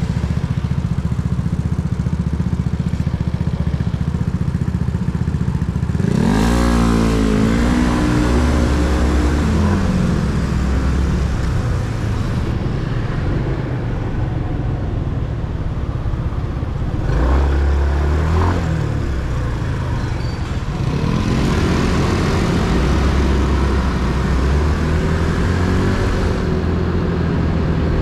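Motorcycle engine running while being ridden, speeding up with a rising pitch about six seconds in, again at about seventeen seconds, and once more a little after twenty seconds, between spells of steadier running.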